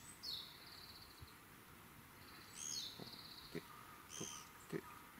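A songbird calling three times, each call a high note running into a short falling trill. A few faint soft ticks come in the second half.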